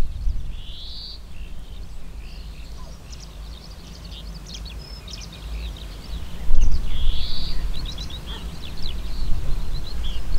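Several songbirds singing and chirping, with short trills and a buzzy call about a second in and again around seven seconds, over a low rumble of wind on the microphone that swells loudest about six and a half seconds in.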